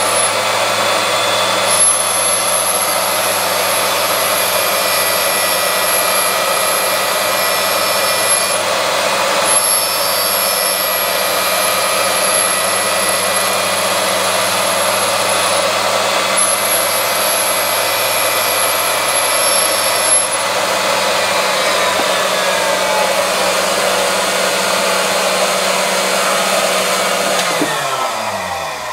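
Valve grinding machine running, its wheel grinding the face of a Chrysler 440 valve turning in the chuck: a steady machine hum, with a thin high whine that comes and goes in long stretches. Near the end the motor is switched off and the pitch slides down as it winds down.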